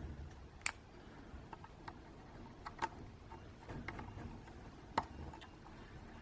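Small, irregular clicks and taps of plastic and metal as a replacement propeller and its screw are handled and screwed onto a DJI Mavic Mini's motor, with three sharper clicks among fainter ones.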